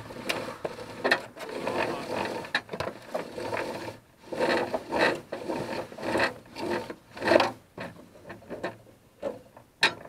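Rope being pulled into the metal carriage of a ladder hoist: irregular scraping and rubbing against the frame, with scattered knocks, the sharpest one near the end.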